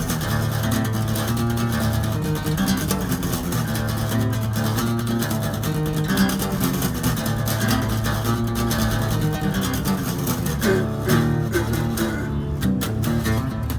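Acoustic guitar strummed steadily, playing chords in an instrumental passage of the song.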